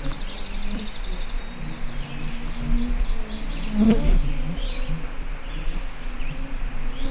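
Flying insects buzzing close around the microphone with a wavering drone, while a small bird sings high rapid trills twice in the background.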